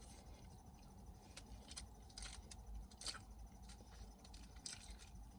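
Faint chewing: scattered soft mouth clicks and smacks of someone eating a taco.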